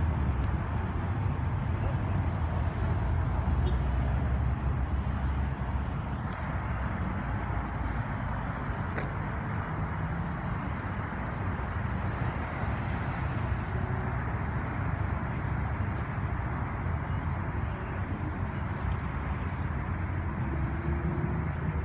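A vehicle engine running steadily with a low rumble that is strongest in the first several seconds, with faint voices in the background.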